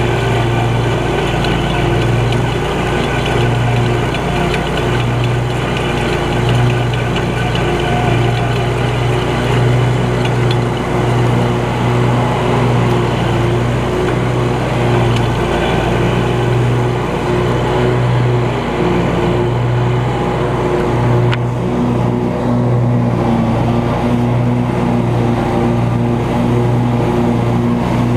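Scag Cheetah 52 zero-turn mower's engine running steadily under way, heard from the operator's seat. A little past two-thirds through, the higher hiss in the sound thins out while the engine note carries on.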